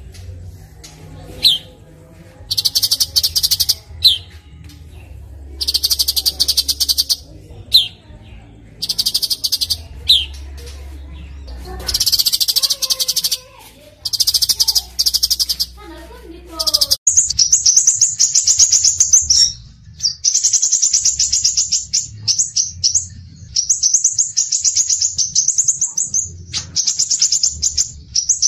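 Recorded songbird song used as masteran for training cage birds. Short sharp rising chirps about every second and a half alternate with buzzy, very high trills. A little past halfway it changes to a different rapid, high chattering song that runs almost without a break.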